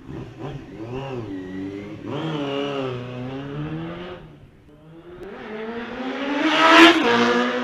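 Suzuki GSX-R600 SRAD's inline-four engine revving as the bike rides off. The revs rise and fall, dip about halfway through, then climb hard to their loudest near the end before the pitch drops.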